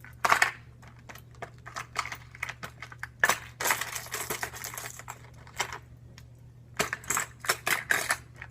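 Hard plastic fishing lures and tackle box trays being handled: irregular clusters of sharp clicks and clatter.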